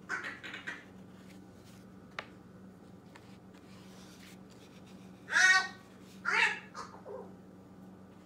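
Domestic cat meowing twice, a little over five and about six seconds in, each call short and bending in pitch, followed by a softer call.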